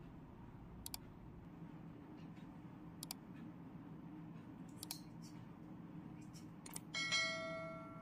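Sound effect of a subscribe-button overlay: a few soft mouse-like clicks, then a single bright bell ding near the end that fades over about a second, over a faint low hum.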